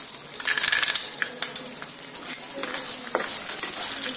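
Raw peanuts tipped into hot oil in a steel kadai, sizzling loudest about half a second in as they land among the frying mustard seeds and urad dal. They are then stirred with a wooden spatula over a steady frying hiss, with scattered scrapes and knocks against the pan.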